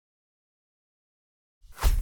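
Dead silence, then about a second and a half in a whoosh sound effect with a deep low boom sweeps in, peaks sharply and starts to die away.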